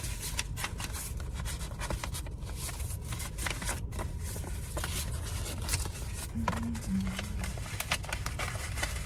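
Rustling and crinkling of gift-basket items and greeting cards being handled, with many small clicks and crackles over a steady low rumble.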